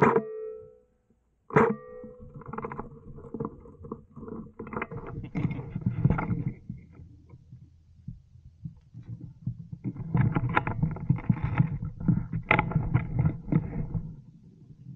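Leafy brush rustling and swishing against a body-worn camera and gear as a player pushes through chest-high vegetation, with footsteps and handling knocks in two long stretches. It follows a single sharp crack about one and a half seconds in.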